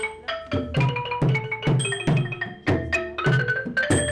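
Traditional Khmer music: a Cambodian wooden xylophone (roneat) plays a quick melody of struck notes, with deep strokes on a barrel drum under the beat.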